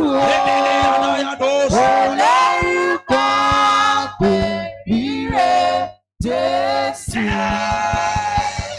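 Worship singing: a voice holds long notes phrase after phrase, with a short break about six seconds in.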